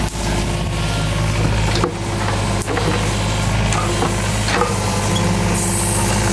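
Small diesel digger engine running steadily, with scattered clanks and scrapes from the digging work on top.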